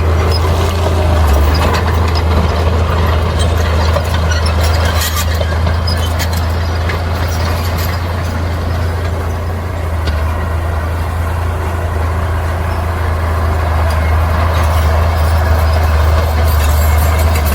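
Heavy diesel earthmoving machinery running steadily with a deep engine drone, with scattered clanks and knocks about four to seven seconds in.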